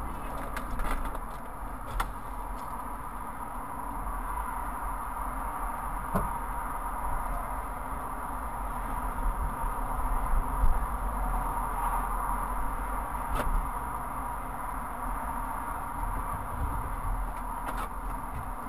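Steady motorway traffic noise heard from inside a car stopped in traffic, with other vehicles passing alongside and a few short, sharp clicks.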